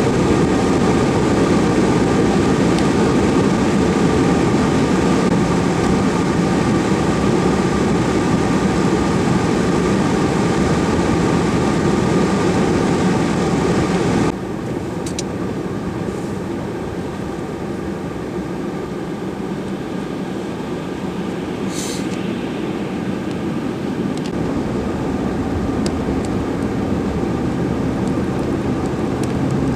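Heavy vehicle engine running steadily, with faint steady tones. The sound drops abruptly in level about fourteen seconds in and then slowly builds again. There is a brief hiss about twenty-two seconds in.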